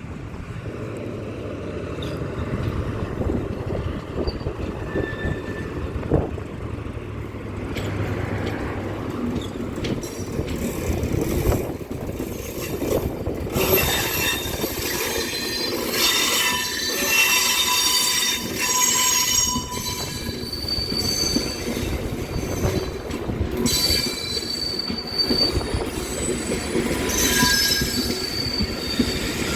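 A train running through the station with a low rumble, its wheels squealing on the rails from a little under halfway in, with several high shrill tones coming and going.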